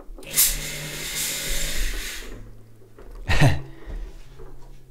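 ADJ VF1100 fog machine firing a burst of fog: a hissing rush for about two seconds over the buzz of its pump, with a low hum continuing after. A short loud burst follows about three seconds in. The machine is working normally again, its heater freshly cleared of a clog.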